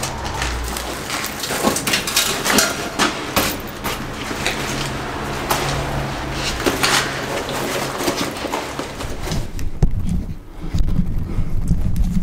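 Irregular knocks, scrapes and rustling of a person moving about and handling gear at the foot of a rusty iron ladder in a narrow concrete shaft, with heavier thumps near the end.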